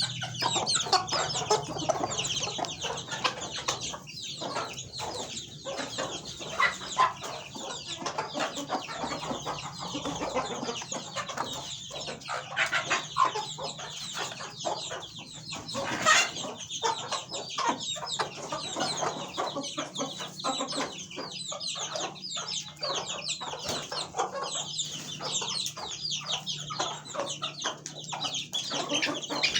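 A flock of chickens clucking and calling without pause, many short calls overlapping, over a faint low steady hum. A single sharp click comes about halfway through.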